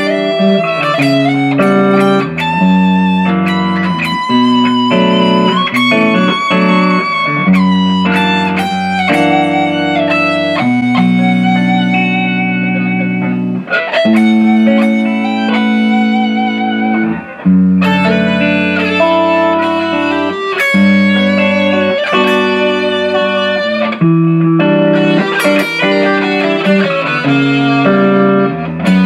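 Electric guitar fitted with a Floyd Rose FRX tremolo, played amplified: picked single-note lines and ringing chords that change every second or so, some held notes wavering with vibrato.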